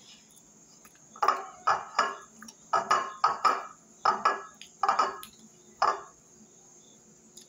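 A shallow glass bowl clinking about ten times as a hand scrapes and knocks against it, gathering food with the fingers. Each clink rings briefly; they come in a cluster from about a second in until about six seconds.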